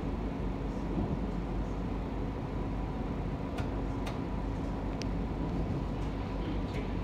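Alstom Citadis Dualis tram-train running on the line: a steady low rumble with a constant hum and a few light clicks.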